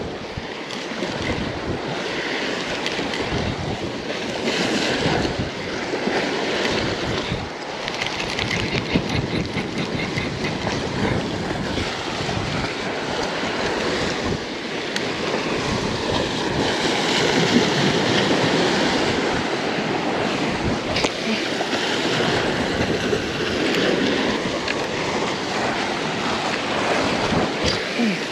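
Waves washing and splashing against the rocks of a jetty, a steady rush of surf, with wind buffeting the microphone.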